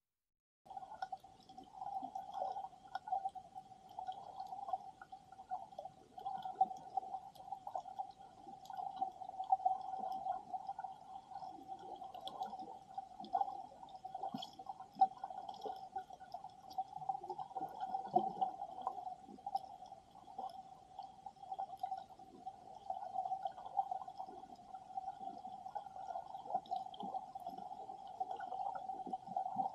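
Muffled underwater sound picked up by a submerged camera, starting about a second in: a steady, hollow water rush with scattered faint clicks and crackles.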